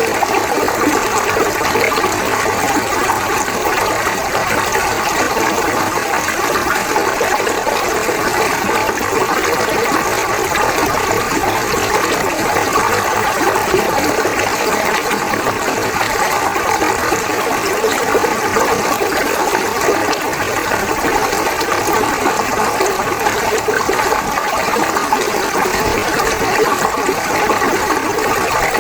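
Fast-flowing river water rushing steadily, an even, unbroken loud rush.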